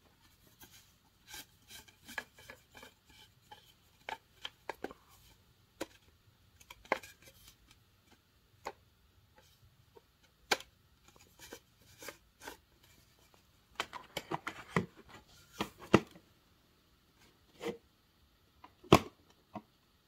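Hard plastic extension wand of a Dirt Devil MVP upright vacuum being handled: scattered clicks, knocks and light rattles, with a burst of clatter about two-thirds through and one sharp knock near the end as the wand is pushed into its holder on the vacuum's body.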